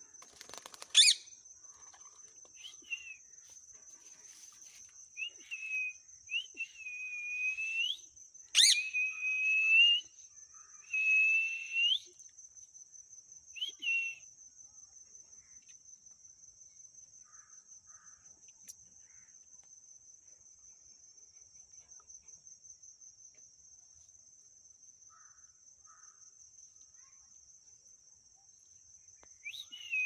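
Rose-ringed parakeets calling: a string of short squawks, some rising at the end, through the first half, with two sharp loud calls about a second in and near nine seconds. A few more come right at the end. Under them runs a steady high-pitched insect trill.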